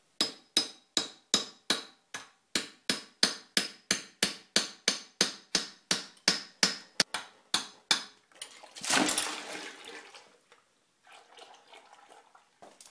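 Hammer driving a long metal punch against the end cap of an oil-filled x-ray head: some twenty sharp, ringing strikes, about three a second. About nine seconds in, a loud rush and splash as the cap gives way and the head's insulating oil gushes out and spills.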